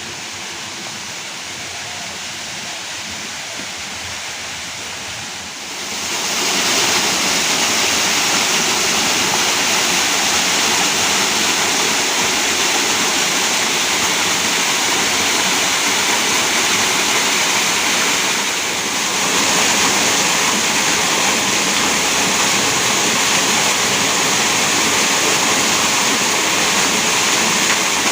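Steady rushing of flowing river water, growing clearly louder about six seconds in.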